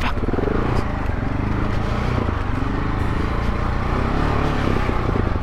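Dual-sport motorcycle engine running at low speed, its revs rising and falling with the throttle on a steep, loose, rocky downhill trail.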